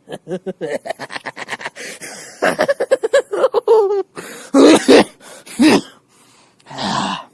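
A villain's maniacal laugh: a fast staccato run of short laughs, building to a few loud harsh cackles, with a breathy burst near the end.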